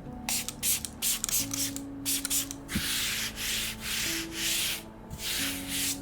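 Mechanical keyboard with lubed linear switches (Alfilon Blue Sky) and PBT keycaps being typed on fast, in quick bursts of keystrokes with short pauses between them, as in typing out words.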